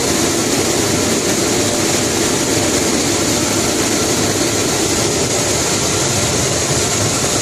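Buckwheat hulling and separating machine running with a loud, steady mechanical noise.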